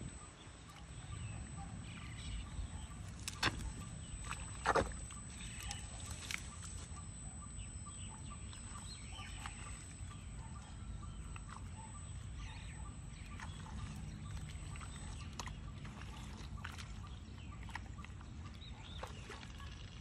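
Bare hands digging into an eel burrow in wet mud: squelching and splashing, with two louder wet slaps about three and a half and nearly five seconds in. A steady low rumble sits underneath.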